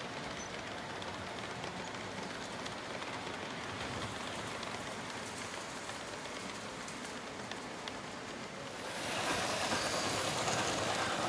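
O gauge model freight cars rolling on three-rail track, a steady rumble and clatter of wheels on rail. It gets louder about nine seconds in, with a few steady tones over the running noise.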